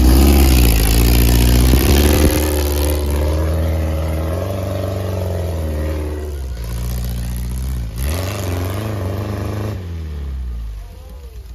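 Off-road buggy engine revving hard as it climbs a steep dirt bank, its pitch rising and falling again and again as the throttle is worked. Loudest at the start, dropping back a little in the last couple of seconds.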